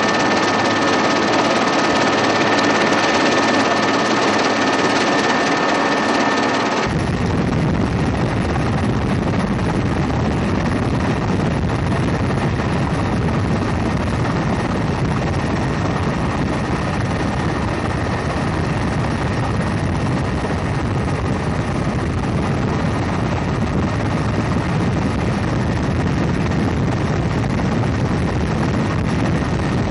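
Helicopter in flight heard from inside the cabin: a steady turbine whine over rotor and engine noise. About seven seconds in the sound cuts abruptly to a heavier, deeper rumble of rotor and airflow heard beside an open door-gun position.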